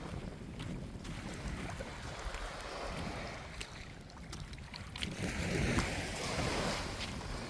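Waves washing onto a beach, with wind rumbling on the microphone; a larger wave swells and breaks about five seconds in.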